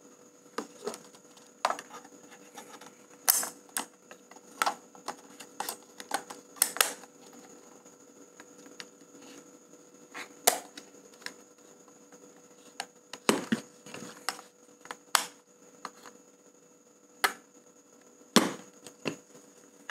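Irregular sharp plastic clicks and knocks from a Canon EOS 650D camera body and its flip-out LCD screen being handled and turned over, with two heavier knocks in the second half.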